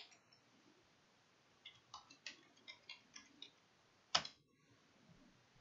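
Computer keyboard keys clicking as a password is typed: a quick run of about eight keystrokes, then one louder single key click about a second later.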